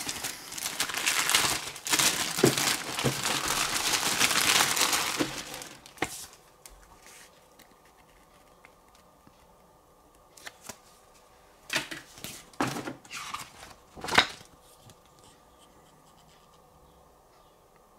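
Packaging around the monitor's user manual and drivers being torn open and crinkled for about six seconds, then a few short rustles as the papers are handled.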